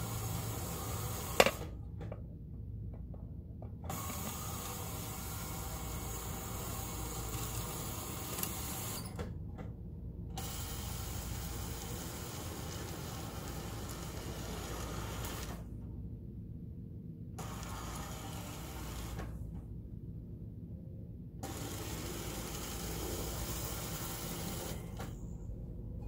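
Makita curtain motor running steadily, drawing the curtains along the overhead track, with one sharp click about a second and a half in.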